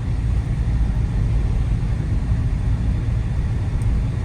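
Dodge Charger R/T's 5.7-litre Hemi V8 running at a steady pace on the move, a low steady rumble mixed with road and wind noise, heard from inside the cabin with the windows open.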